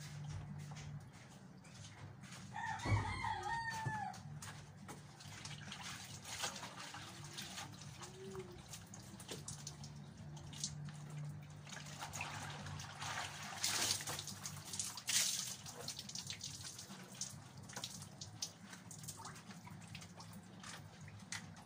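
A rooster crows once, briefly, about three seconds in. Around it are scattered rustles, drips and splashes of wet laundry being lifted from a basin and hung up, loudest around the middle.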